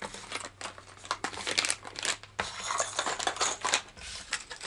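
Plastic lure packaging being handled: a run of irregular crinkles, rustles and light clicks.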